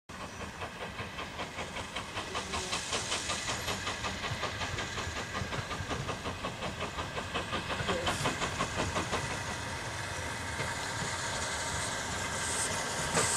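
Steam locomotive working up to the station, its exhaust beating in an even rhythm of about three beats a second over a steady hiss, and growing louder as it approaches.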